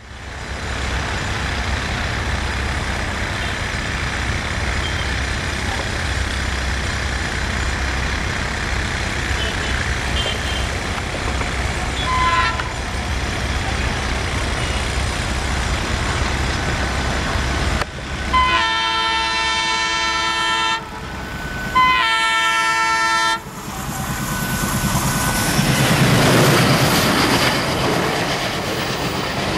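Twin ALCo WDM-class diesel locomotives hauling a long express, their engines rumbling steadily as they approach. A short horn toot comes near the middle, then two long blasts on the multi-tone air horn, the first about two seconds long. Near the end the locomotives pass close and the coaches roll by with a rushing clatter.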